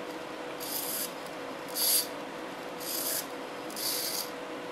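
Metal-gear micro servo driving a fifth-wheel coupler jaw, running in four short bursts about a second apart, with a faint steady hum between them.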